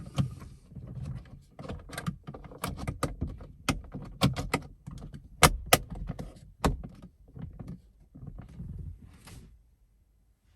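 Dashcam parts being handled and pressed into place during installation: a busy run of irregular clicks, knocks and rattles with handling noise, stopping about a second before the end.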